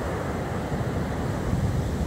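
Stormy sea surf breaking and washing onto the beach, a steady rush of noise, with wind buffeting the microphone as a low, gusting rumble.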